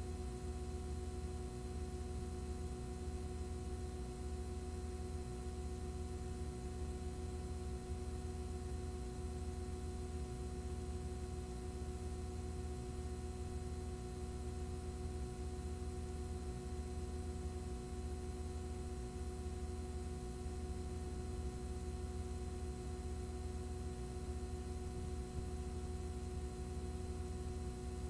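Steady electrical hum with several fixed tones over a constant hiss, unchanging throughout, with no other sound.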